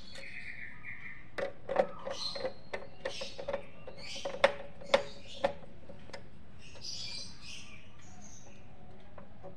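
Hand screwdriver driving small screws into an audio mixer's metal back cover: a run of light metal clicks and faint squeaks, with three sharper clicks about halfway through.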